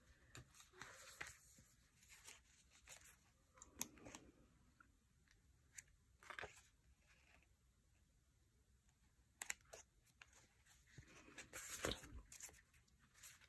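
Faint handling of paper and stickers: scattered light rustles, taps and clicks, a little busier near the end.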